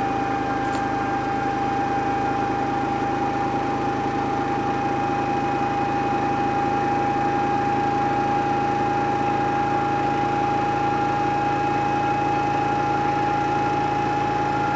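Samsung washing machine running with a steady motor hum and a high whine, with no knocking from the drum.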